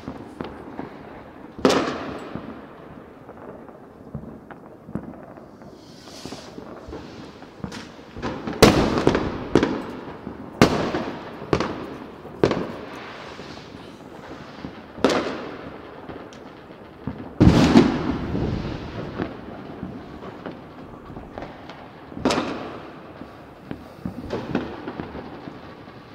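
Fireworks and firecrackers exploding: about a dozen sharp bangs at irregular spacing, each trailing off in a long echo. The loudest come about nine and seventeen seconds in.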